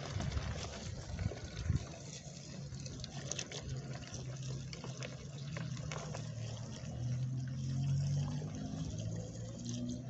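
Water from a garden hose pouring into a plastic bucket onto dried poultry manure, a steady splashing pour as the bucket fills.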